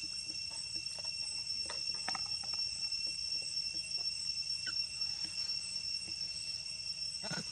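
Steady high-pitched insect drone, with a few faint ticks and taps.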